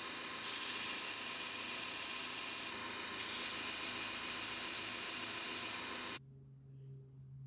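Belt grinder sanding a wooden knife-handle block pressed against its moving abrasive belt: a loud, steady rasping hiss, easing briefly twice as the piece is repositioned. About six seconds in the wood comes off the belt and the sanding stops, leaving a low hum.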